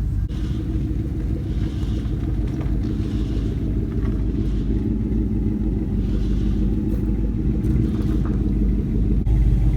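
Vehicle engine running steadily with a deep, even rumble, getting a little louder near the end.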